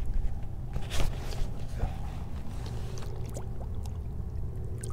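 Shallow water sloshing and trickling around a hand holding a spotted seatrout in the water, with a couple of short splashes about one and two seconds in.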